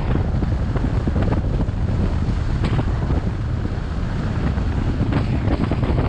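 Road noise from a 2006 Ford F-150 pickup driving on a gravel road: a steady low tyre rumble with irregular crackles and ticks from the gravel, and wind buffeting the microphone.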